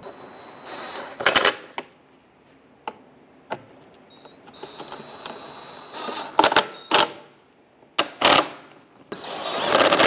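Cordless impact wrench running in the 10 mm bolts that hold a cooling fan to an A/C condenser. The motor whines as each bolt spins in, then breaks into a short burst of rapid hammering as the bolt snugs tight, about four times.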